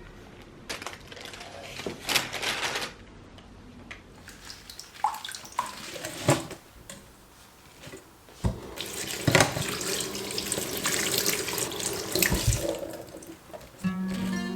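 Water running from a tap into a sink in two spells, with a few knocks of things being handled.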